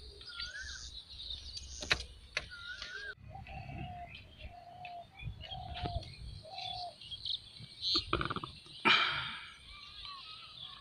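Birds calling: a short rising-and-falling call repeated a few times, then a lower call repeated about four times. Two louder rushing noises come near the end.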